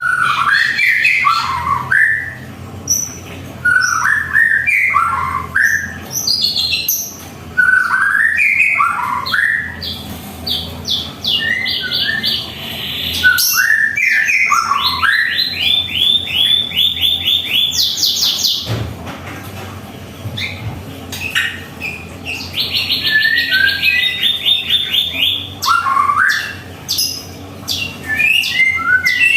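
White-rumped shama (murai batu) singing a varied song: rising whistled phrases broken by fast runs of evenly repeated notes.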